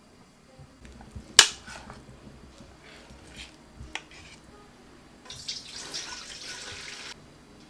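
A single sharp clank about a second and a half in, then a few lighter knocks, typical of kitchen utensils or dishes. Near the end, water runs from a tap for about two seconds, then stops.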